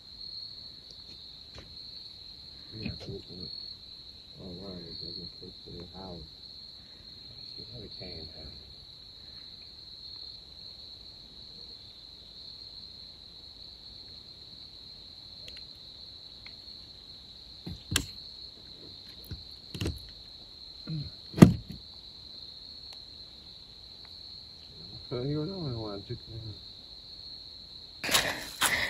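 A steady, high-pitched insect chorus, like crickets, with faint muffled voices now and then. About two-thirds of the way through come three sharp clicks, the last the loudest, and a louder spell of noise sets in near the end.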